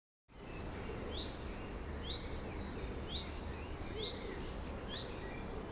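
Garden birds calling: one bird repeats a short, high, hooked call about once a second, five times, with fainter chirps from other birds over a steady low background rumble.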